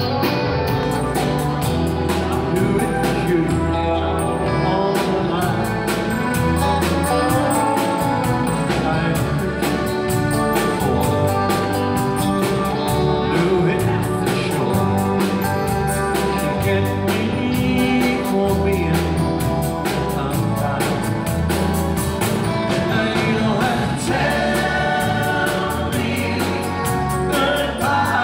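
Live rock band playing through a PA, electric guitar through a Vox amp, electric bass and drums, with steady drum strikes throughout.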